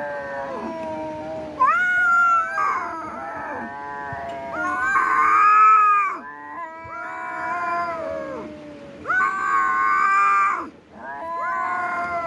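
Cats yowling and meowing in long, drawn-out calls that bend up and down in pitch, often two voices overlapping, with three louder stretches.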